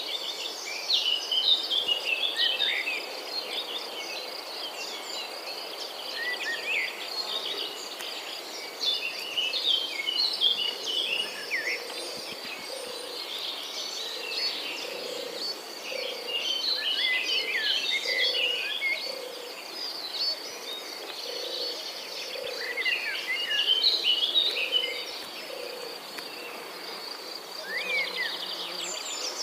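Morning nature ambience: a steady, high insect trill throughout, with many birds chirping and singing over it. Through the middle stretch a low call repeats about once a second.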